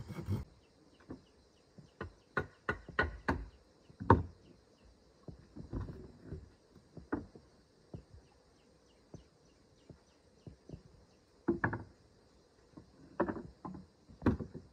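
Scattered wooden knocks and clatters of boards and hand tools being handled on a plank floor, with a quick run of about four knocks a couple of seconds in and another cluster near the end. A faint insect buzz lies underneath.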